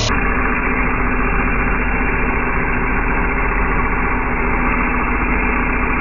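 Lathe spinning a cast-resin pen blank at 3,700 RPM while a finishing tool cuts it, peeling off a continuous stream of resin shavings. The running and cutting sound stays steady and even throughout.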